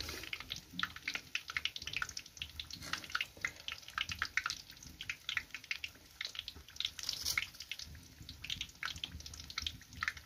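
Khajor dough pieces deep-frying in hot oil in a wok, sizzling with a dense, irregular run of small pops and crackles.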